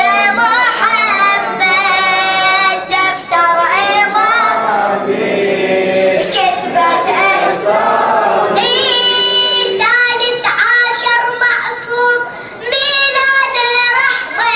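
Arabic devotional singing: a radood chanting a celebratory mawlid poem in long held, ornamented notes, phrase after phrase with short breaks between.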